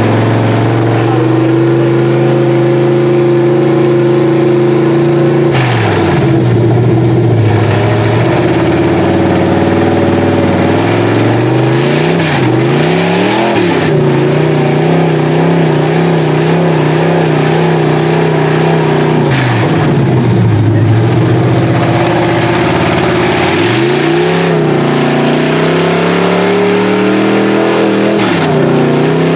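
Lifted Chevy mud truck's big-block V8 revving hard as its tires churn through deep mud, the engine note sagging and climbing back up again and again as it bogs and frees itself.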